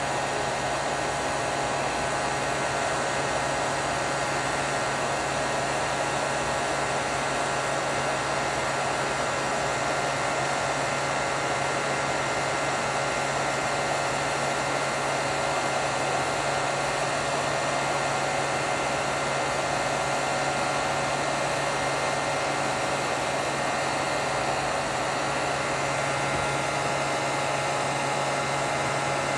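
Handheld electric heat tool blowing steadily, a constant rush of air with a steady hum, as it warms a layer of colored pencil on canvas so it can be blended in.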